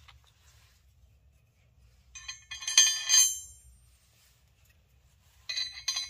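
Small steel screws clinking and ringing against metal in two short bursts of rattling, about three seconds apart.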